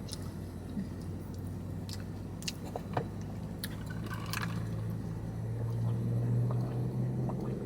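A person chewing soft iced pastry with her mouth close to the microphone, wet smacks and small clicks scattered through it, over a steady low hum inside a car.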